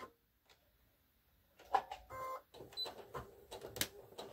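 Baby Lock Soprano sewing machine: after about a second and a half of silence, a few sharp mechanical clicks and a short beep, as the machine is set to stitch in reverse to lock the seam.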